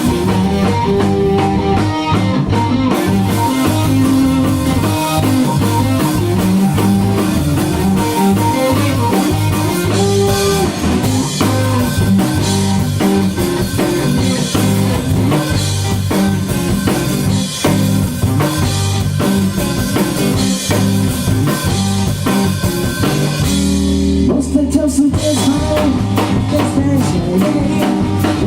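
Live band playing an upbeat rock number with drum kit, guitar and bass. About 24 seconds in the cymbals and high parts drop out briefly over a held low note, then the full band comes back in.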